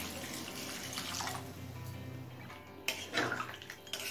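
Hot water being poured into a kadai of cooking chicken and pointed gourd curry, a steady splashing hiss that fades out after about two and a half seconds, followed by a few sharp clinks of utensil on pan.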